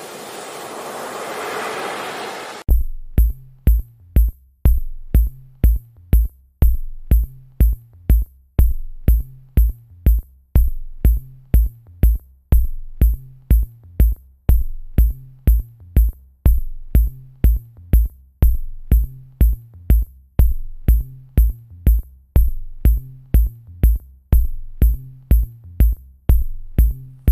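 Electronic music: a swelling hiss that cuts off sharply about three seconds in, then a steady drum-machine beat of low kick thumps, about two a second, with a bass line and high clicking hi-hats.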